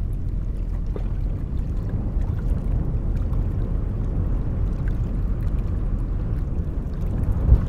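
Steady low rumble of a 70-metre river cargo ship passing close, from its engine and the water at its bow, with a short bump near the end.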